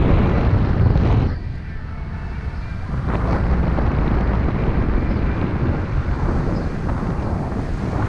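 Wind buffeting the microphone of a moving electric unicycle, a loud low rumble with no steady pitch. It eases off for about two seconds a little over a second in, then picks up again.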